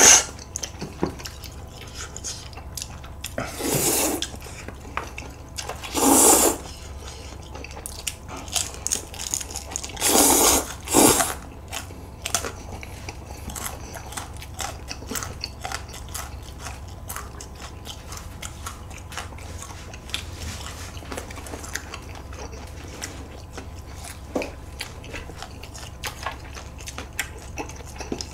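Close-up eating sounds: noodles slurped loudly several times in the first eleven seconds, then steady chewing and crunching of crispy fried pork.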